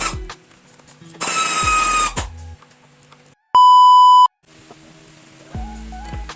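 Background music, cut off about three and a half seconds in by a single loud, steady electronic beep lasting under a second, after which quieter music resumes.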